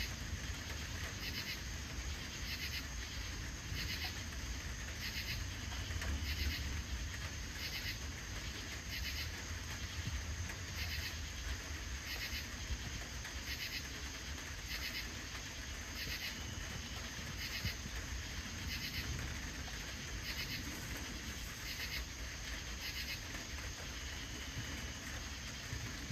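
Crickets chirping in a steady, evenly spaced rhythm, with a continuous higher insect trill behind them and a low steady rumble underneath.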